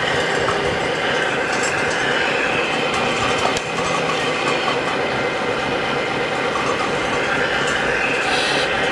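Steady mechanical whirring and clatter of radio-controlled construction models' electric motors and gears, with several thin whining tones over it and an occasional tick.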